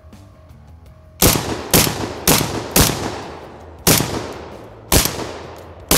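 ATI Bulldog semi-automatic 12-gauge bullpup shotgun firing 00 buckshot in quick succession: about a second in, four shots roughly half a second apart, then a short pause and three more about a second apart, each a sharp report with an echoing tail. Every round fires and cycles without a stoppage.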